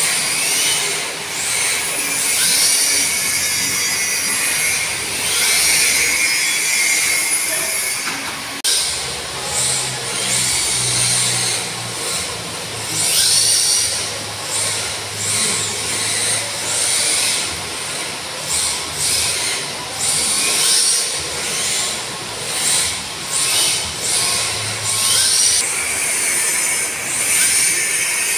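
Electric motors of two RC drift cars whining, rising and falling in pitch with each burst of throttle, over and over.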